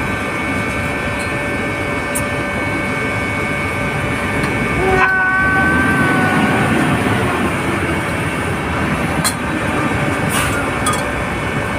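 Steady machinery noise of running pumps and motors: a continuous loud rush with faint high whining tones over it.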